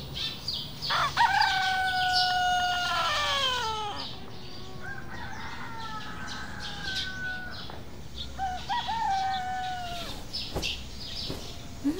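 A rooster crowing three times: a long crow that holds its pitch and then slides down, a fainter one, and a shorter one.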